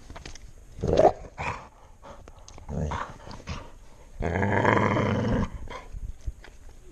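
Dog growling in play over a plush duck toy: a few short growls in the first three seconds, then a longer, louder growl from about four seconds in that lasts over a second.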